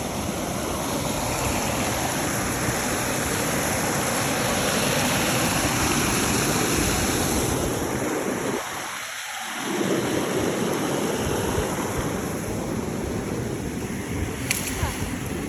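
Rushing water of a stream's cascades and pools, a steady rush that dips briefly about nine seconds in.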